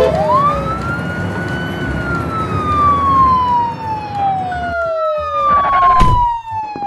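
Ambulance siren wailing in long, slow rise-and-fall sweeps over a vehicle rumble. A brief sharp knock comes near the end, as the ambulance pulls up.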